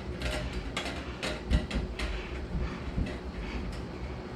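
A run of light clicks and knocks from parts being handled, with a louder thump about a second and a half in.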